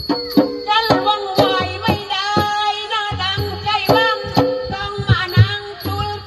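An elderly woman singing a Nora verse through a microphone and PA, a wavering, ornamented vocal line, over the quick, irregular strikes of the Nora ensemble's drums and percussion.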